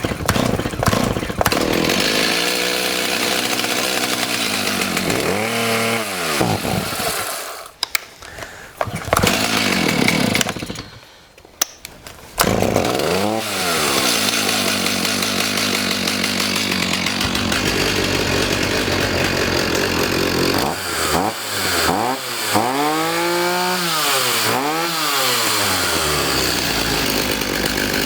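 Stihl MS290 two-stroke chainsaw engine running and being revved up and down, faltering and nearly dying twice before coming back sharply about twelve seconds in, then revved repeatedly. It is clearing oil out of the carburetor and burning it off, which makes it smoke heavily.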